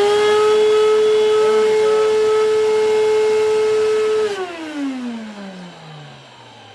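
Hoover WindTunnel bagless upright vacuum cleaner motor running at full speed with a steady whine, then switched off about four seconds in and spinning down, its pitch falling as it slows. The clog has just been cleared; the owner says the motor sounds a bit dry.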